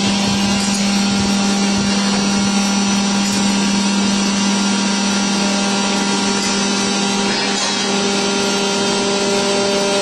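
Electric motor and hydraulic pump of a vertical hydraulic baler running with a steady, loud hum and whine that holds one pitch throughout.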